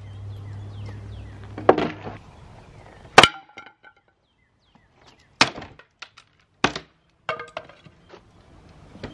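Pieces of a stained wooden radio-cabinet tossed into a brick fire pit, clattering against the brick and each other: about six sharp knocks, the loudest about three seconds in, some ringing briefly.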